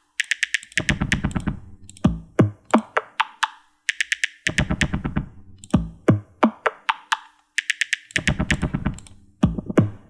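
An FL Studio pattern playing back: a kick-drum sample pitched to different notes in the piano roll, sounding as a quick repeating sequence of short electronic hits. High clicky hits alternate with deeper thumps.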